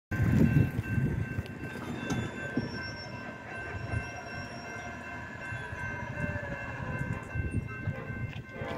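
Railroad grade-crossing warning bell ringing steadily while the crossing gate arm lowers, a sign that a train is approaching. Under it is an uneven low rumble of wind on the microphone, strongest in the first second.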